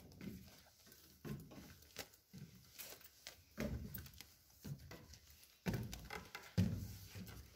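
Footsteps on wooden stairs and floorboards: a dull thud at each step, roughly one a second, with the heaviest steps near the end.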